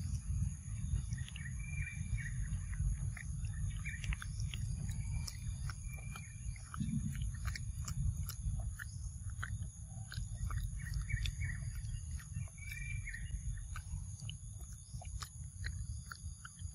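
Forest ambience: short bird chirps every few seconds over a steady high-pitched drone, with a low rumble and scattered small clicks underneath.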